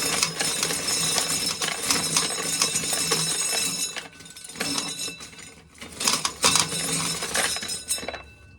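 Corn sheller working an ear of corn: metallic rattling and ringing with kernels clinking. It stops briefly about halfway, then runs again until near the end.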